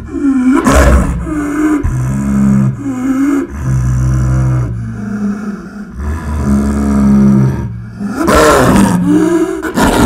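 Designed monster sound effect for the nue yokai: deep, layered creature roars and growls whose pitch bends up and down, loudest about a second in and again near the end.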